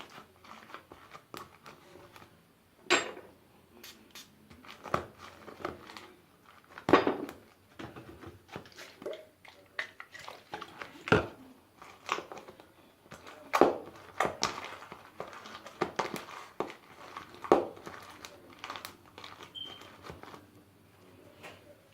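Homemade glue slime squished and stretched by hand, giving irregular crackling, sticky popping and sharp clicks at uneven intervals.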